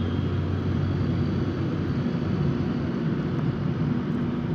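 Inside a moving car: steady low rumble of the engine and road noise as the car drives along.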